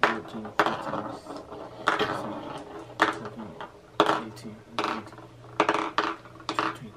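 Hard candy-coated M&M's clicking on a hard tabletop as they are slid out and counted one at a time, about nine sharp taps at uneven intervals.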